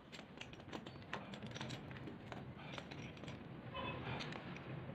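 Irregular light metallic clicks and taps of a pipe wrench being worked back and forth to tighten a threaded fitting into a brass swing check valve.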